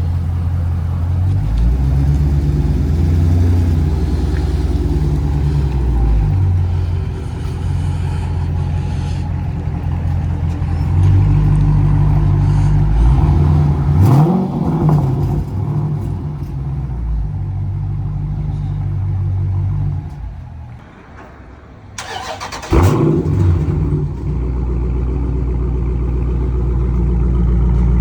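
Dodge Scat Pack's 6.4-litre HEMI V8 running loud through a muffler-deleted exhaust. About halfway through it revs up in a rising pitch, drops quieter for a couple of seconds, then comes back with a sudden loud burst.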